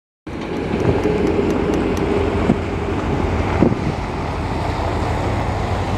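Farm tractor towing a heavy liquid tanker wagon drives past close by: a steady low engine and tyre rumble with a held tone in the first couple of seconds and two clunks about two and a half and three and a half seconds in. Wind on the microphone adds noise.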